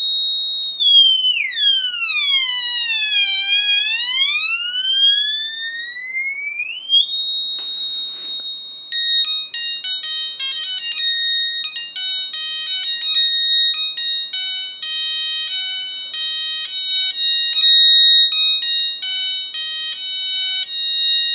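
Light-sensor theremin built on two 555 timer chips, sounding through a small speaker as a hand shades its light-dependent resistors. A high steady tone swoops down in pitch and back up, then after a brief rush of noise it breaks into choppy beeps jumping between pitches over a steady high tone.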